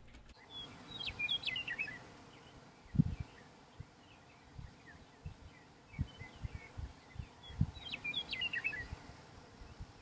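Small birds chirping: two short bursts of quick high twittering, about a second in and again near the eight-second mark, with fainter scattered notes between. Low thumps break in at intervals, the loudest about three seconds in.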